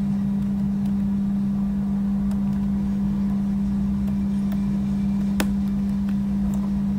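Steady low electrical hum with a rumble beneath it, and a few faint clicks from the computer's mouse or keyboard as text is nudged into place, the clearest about five and a half seconds in.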